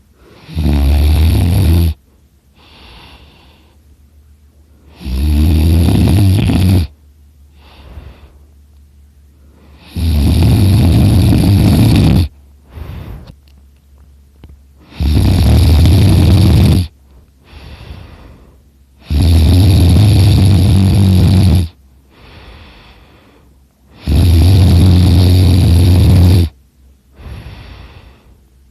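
A sleeping person snoring super loud: six long snores, each about two seconds, coming roughly every five seconds with a strong low buzz, and a softer breath between each.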